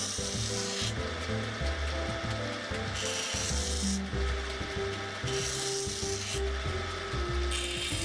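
A balisong handle ground against a spinning abrasive wheel: a rasping grind that swells and drops every second or two as the piece is pressed on and eased off.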